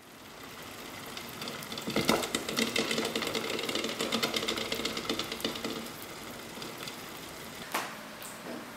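Eggs rattling and knocking against the bottom of a pot of boiling water: a dense, fast clatter that swells and then eases off. Near the end come a couple of sharp cracks of eggshell being peeled.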